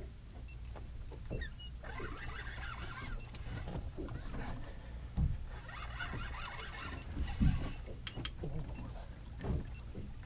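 Fishing reel being wound in spells as an angler pumps a hooked fish up on a boat rod, with a few sharp knocks and a steady low rumble underneath.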